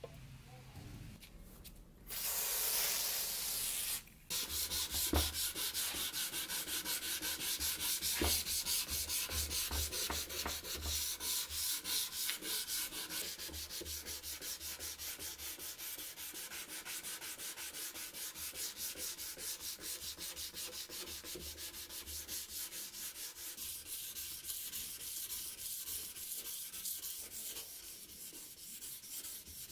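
A steel knife blade clamped in a vise being hand-sanded with quick back-and-forth strokes, a steady scratchy rubbing that starts about two seconds in, with a brief break soon after.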